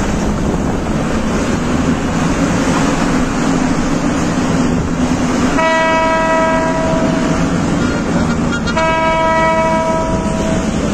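Steady road and engine noise inside a moving car on a wet road. A vehicle horn sounds twice, each a steady blast of about a second and a half, about halfway through and again near the end.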